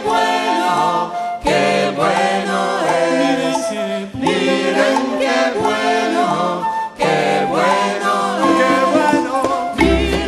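Music soundtrack: a choir singing with little or no accompaniment, in phrases broken by short breaths. Near the end a different song with a deep bass line begins.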